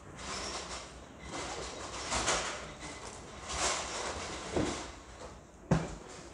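Rustling noise that comes in swells, with a dull knock about four and a half seconds in and a sharp, louder knock near the end.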